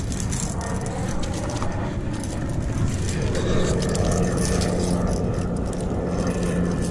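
Metal snap clips of a fish stringer clinking and rattling as a walleye is clipped onto it. A low rumble runs underneath, and a steady engine drone comes in about three seconds in.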